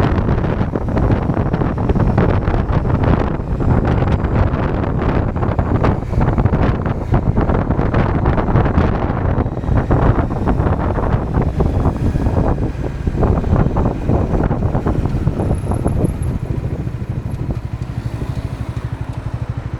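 Bajaj Dominar 400's single-cylinder engine running while riding, heavily buffeted by wind on the camera microphone. In the last few seconds the wind eases and the engine settles to an even, pulsing beat at lower revs as the bike slows.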